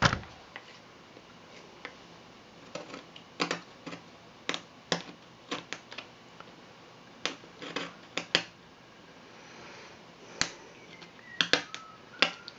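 Hobby knife scraping and picking old glue off the top of a wooden cuckoo-clock bellows chamber, in short irregular scrapes and clicks. A sharp knock comes at the very start.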